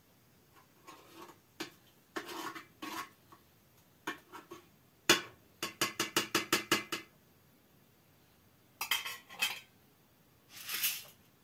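Metal spoon clinking and scraping against the inside of a metal pot on a small burner, in short clusters, with a quick run of about eight taps near the middle.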